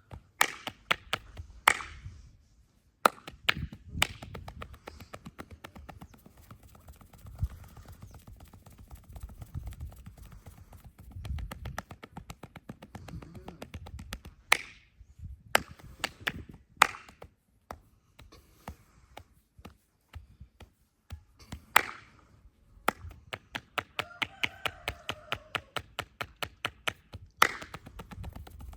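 Hands slapping and tapping on skin during a head and back massage: quick runs of sharp percussive strokes, several a second, broken by a few louder single slaps.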